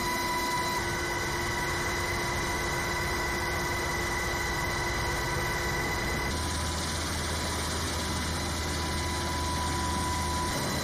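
Pave Hawk helicopter heard from inside the cabin: a steady rush of engine and rotor noise with high turbine and gearbox whines. A low hum joins about six seconds in.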